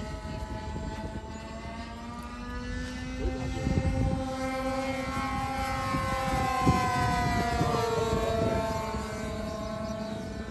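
Radio-controlled DC-3 scale model's twin engines and propellers running in flight overhead, growing louder toward the middle and then falling in pitch as the plane passes and moves away. A few low thumps of wind noise a few seconds in.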